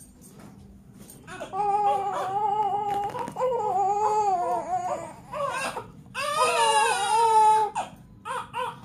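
One-month-old newborn crying, fussing during a diaper change. Long, wavering cries start about a second and a half in, break off briefly past the middle, return in another long cry, and end in short sobs.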